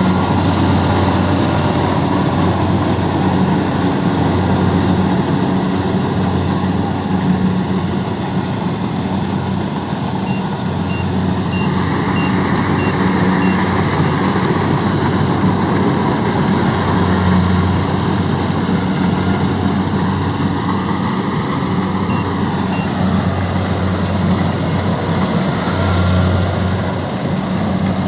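Engine of a rice-harvesting machine running steadily under load, with a deep, even hum and mechanical noise. A faint series of high beeps comes in about ten seconds in.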